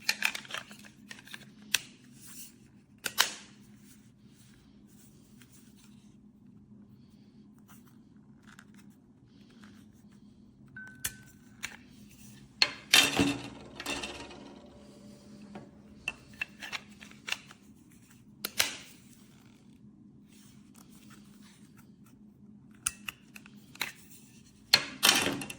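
Scattered plastic clicks and knocks from a small device being handled, with a few louder clunks and a short electronic beep about eleven seconds in, over a faint steady hum.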